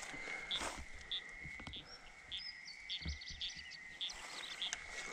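Faint frog and bird calls: a steady high trill with short chirps repeating about every two-thirds of a second, and a few bird chirps around the middle. A few soft rustles and thumps come through as well.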